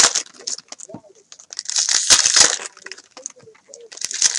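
Foil wrappers of hockey card packs being torn open and crinkled by hand: a crinkle at the start, a longer burst about two seconds in, and another starting near the end, with light rustling between.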